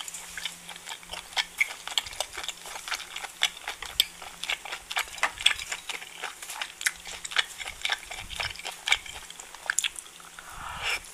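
Close-miked mukbang eating sounds: wet chewing and lip smacks over a mouthful of spicy seafood stew with udon noodles and octopus. They come as a rapid, irregular run of sharp clicks.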